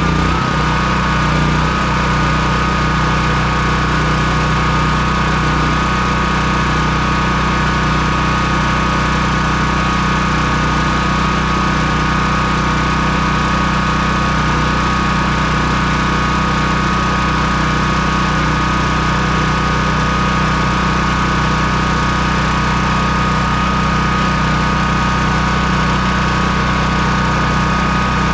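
Honda GX240 single-cylinder engine on an EB3800X generator running steadily at governed speed, off choke on its replacement carburetor. Its speed settles within the first second or two and then holds constant.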